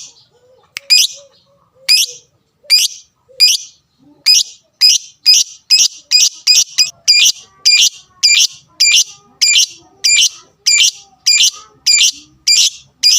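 Lovebird giving loud, shrill, repeated calls. They are spaced out at first, then come faster, about two or three a second, from about four seconds in. These are the excited calls of a 'fighter' bird.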